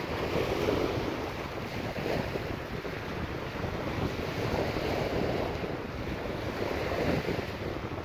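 Sea waves washing onto the shore, swelling and easing gently, with wind rumbling on the microphone.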